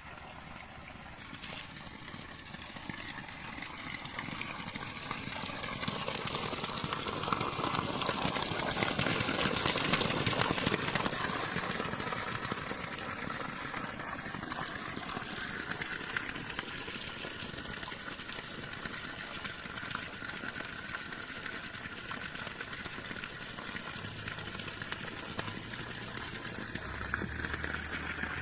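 Spring water flowing and splashing in a steady rush, growing louder to a peak about ten seconds in and then running on evenly.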